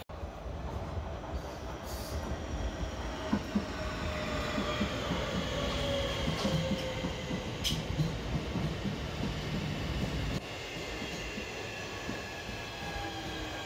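Southeastern electric multiple-unit train running slowly past the platform: a steady rumble of wheels on the rails, with thin whining tones that fall in pitch as it slows. The low rumble drops off suddenly about ten seconds in.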